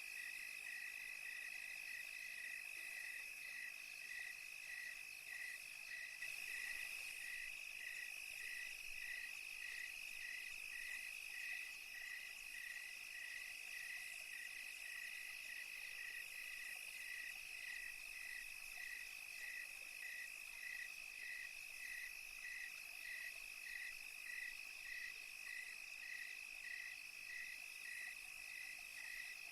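Night chorus of crickets: one holds a steady high trill while another chirps in an even rhythm, about three chirps every two seconds, over a faint high hiss of insects.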